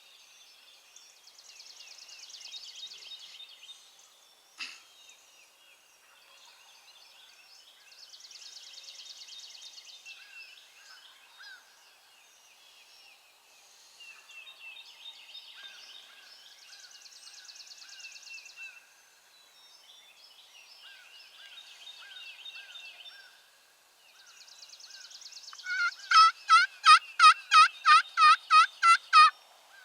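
Wild turkey toms gobbling at a distance, among songbird calls and trills. Near the end comes a much louder, close series of about a dozen sharp notes, about four a second.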